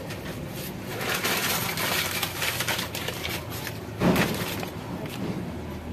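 Paper crinkling and rustling as a hot round metal baking tin is gripped. About four seconds in, the tin knocks once against the metal wok steamer as it is lifted out.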